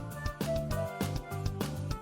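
Background music: a gentle instrumental piece with plucked notes on a steady beat.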